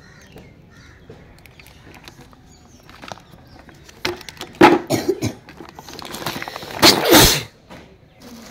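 Plastic-wrapped toys being handled and set down, their clear plastic packaging crinkling and rustling in loud bursts about four to five seconds in and again, loudest, about seven seconds in.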